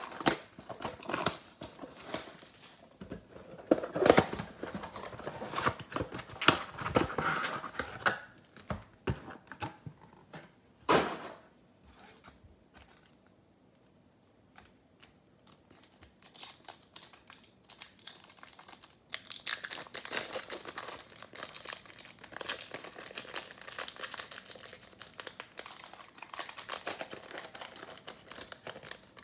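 Plastic wrapping on a trading-card box crinkling and tearing as it is opened, with a sharp rip about eleven seconds in. After a quiet stretch, the shiny wrapper of a card pack crinkles and tears.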